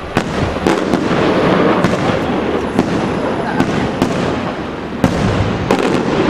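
Aerial firework shells bursting in quick succession: sharp bangs about every half second to second over a continuous dense crackle.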